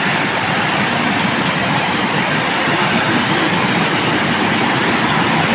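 A loud, steady rushing noise with no clear pitch and no distinct knocks or beats.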